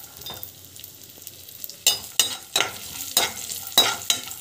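Cashews and raisins frying lightly in ghee in a pan, with a soft sizzle. From about halfway through, a spatula stirs them, scraping against the pan in about five sharp strokes.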